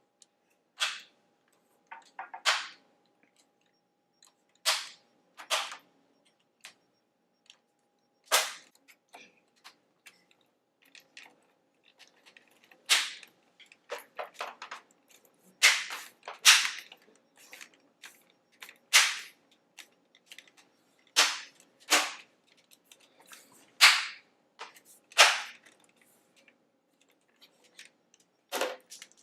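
Plastic snap clips of a Samsung ATIV Book 4 laptop's case clicking into place one after another as the top cover is pressed back onto the base. The clicks are sharp and irregular, some in quick pairs, and get louder in the second half.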